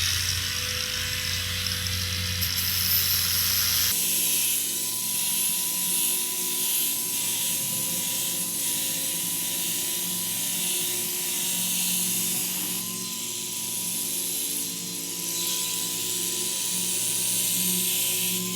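Metabo HPT angle grinder running with a Diablo flap disc, sanding leftover bark off pressure-treated wood deck rails: a steady high motor whine over a hiss of abrasive on wood, the level rising and dipping slightly with the load. About four seconds in, the deeper part of the sound drops out abruptly.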